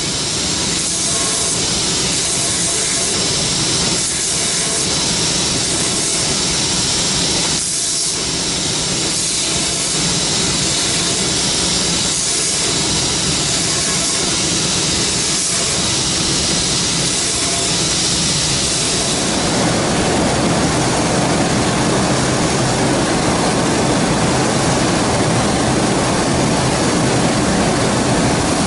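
Pocket knife held against a spinning grinding wheel: a steady, bright hiss of the knife on the wheel over the machine's running. About two-thirds of the way through it changes to a denser, lower and slightly louder rush from another spinning polishing wheel.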